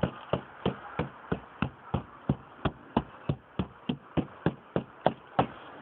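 Steady knocking on a car's rear quarter panel lined with layers of sound deadener and braced with a bar, about three knocks a second. Each knock is short and stops dead without ringing, showing the panel is damped.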